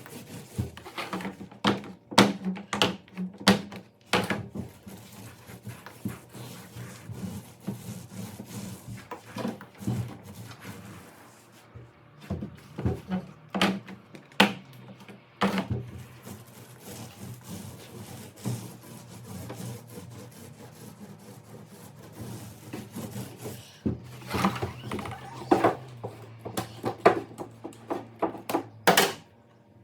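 Irregular knocks, thunks and rubbing from hand work on a pontoon boat's deck while woven vinyl flooring is glued down, over a low steady hum. The knocks come thickest near the start and again near the end.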